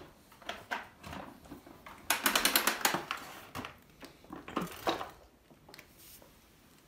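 Plastic clicks and rattling from a canister vacuum cleaner's hose and handle being handled and its handle buttons pressed while the machine is still off, with a quick run of rapid clicks about two seconds in.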